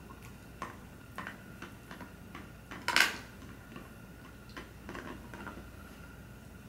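A greyhound gnawing an antler: irregular sharp clicks and scrapes of teeth on hard antler, with one louder crunch about three seconds in.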